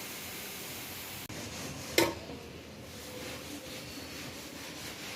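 A steady hiss that cuts off about a second in, then a single sharp knock about two seconds in.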